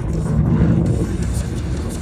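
Music with a deep, steady rumble beneath it, a little louder about half a second in.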